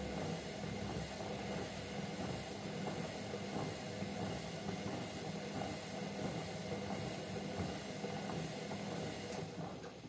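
Hotpoint Ariston front-loading washing machine in its wash cycle: the drum turns with motor hum and soapy water sloshing, then stops at the very end.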